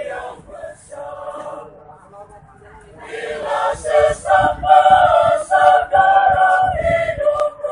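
Mixed choir of men and women singing together in several parts, softly at first and then swelling much louder about three seconds in.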